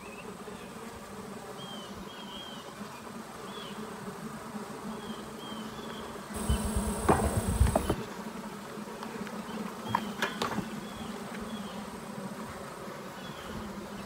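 Honey bees humming steadily at an opened, freshly smoked hive. About six seconds in comes a louder second and a half of rustling with a few knocks, and a couple more clicks follow shortly after.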